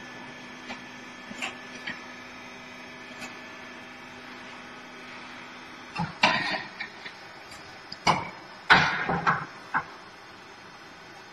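T590A truck tire changer with a steady motor hum and a few faint ticks. About six seconds in the hum stops, and a run of loud metallic clanks, knocks and scrapes follows as the machine's tool arm and the clamped truck wheel are handled.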